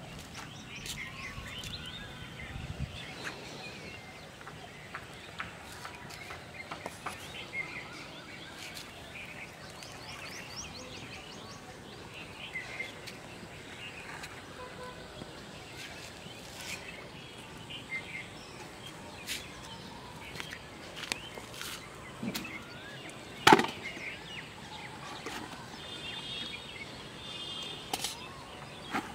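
Pond-side outdoor ambience with small birds chirping on and off and a few short trills. Scattered light taps and knocks, with one sharp, loud knock about 23 seconds in.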